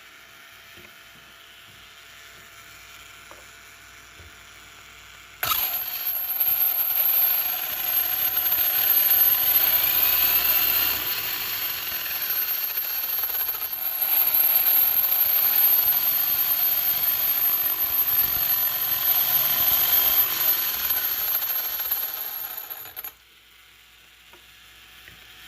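Battery-electric OFNA Mutilator conversion RC car running, its motor and drivetrain giving a steady high whine over a rattling, scrabbling noise. It starts abruptly about five seconds in and cuts off near the end.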